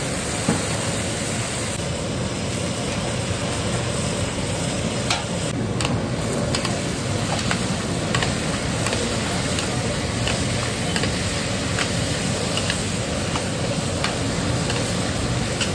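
Diced potatoes sizzling in hot oil in a large iron kadhai, with a metal spatula scraping and clicking against the pan now and then as they are stirred.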